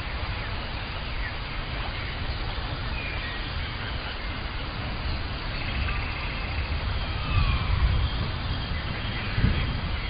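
Rainforest ambience: scattered faint whistled calls, some sliding in pitch, over a steady low rumble, with a couple of louder low bumps in the second half.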